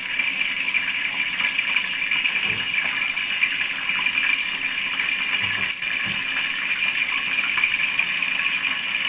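Hot cooking oil sizzling steadily in a frying pan, with a fine crackle, as food fries.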